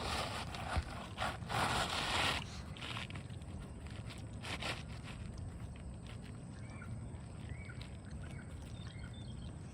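Asphalt shingle scraping and rustling for about two seconds as it is worked back into place, with a sharp knock or two. After that comes a low steady outdoor background with a few faint bird chirps.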